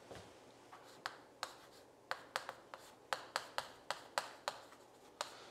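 Chalk writing on a chalkboard: a run of about a dozen sharp, irregular taps and short scrapes as the characters are written.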